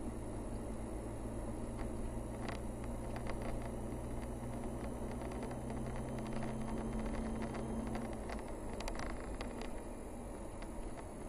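Car engine and tyre noise heard from inside the cabin while driving on a paved road. The engine's steady drone fades about eight seconds in, and light clicks and rattles come and go.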